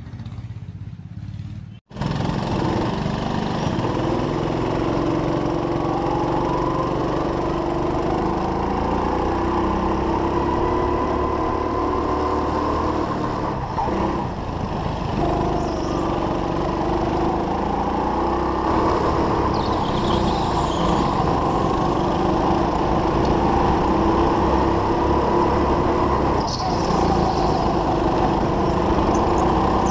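Go-kart's small engine running hard from on board, its pitch rising and falling as it is revved. The engine becomes loud suddenly about two seconds in.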